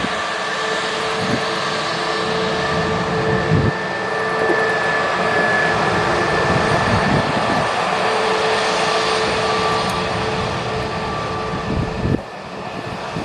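Airbus A321neo jet engines running steadily: a broad roar with a steady high whine over it. The sound drops suddenly near the end.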